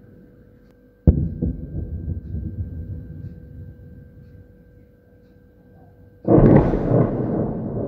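Two blasts of artillery shelling: a sharp crack about a second in that rolls away in echoes, then a louder, longer blast about six seconds in that rumbles on.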